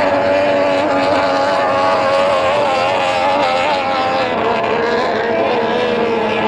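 Racing powerboat engines running hard, a steady high drone whose pitch wavers slightly.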